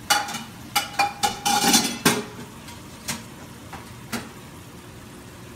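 A plate and dishes clattering in a kitchen sink: a quick run of sharp clinks and knocks in the first two seconds, one with a short ring, then a few lighter knocks. Ground beef sizzles faintly in a skillet underneath.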